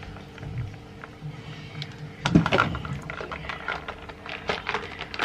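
A loud knock about two seconds in, followed by a run of small clicks, taps and rustles, like objects being handled and set down.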